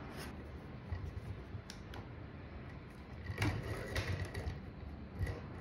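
Handling noise from an Andonstar AD407-Pro digital microscope being moved and adjusted by hand: scattered clicks and knocks with some rubbing, the loudest cluster about three and a half seconds in.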